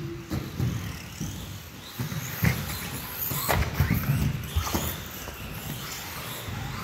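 Electric 1/10-scale RC cars racing on an indoor carpet track, their motors whining up and down in pitch, with a few sharp knocks around the middle.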